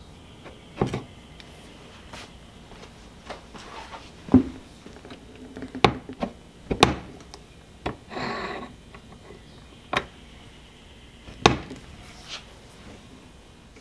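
A handful of sharp, scattered knocks and clacks, about six, with a short scrape about eight seconds in.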